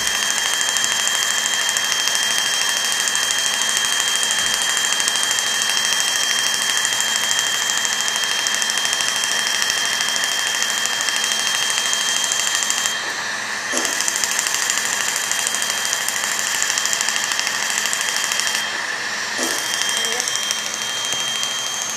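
Steady rushing hiss of a surgical smoke evacuator drawing off the CO2 laser plume at the nose, with a steady high tone over it. The hiss briefly thins twice, about halfway through and again near the end.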